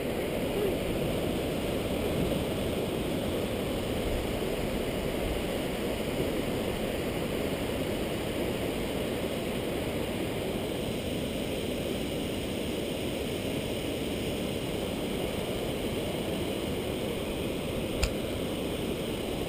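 Steady rushing of river water flowing through rocky shallows below a low dam, with a single sharp knock near the end.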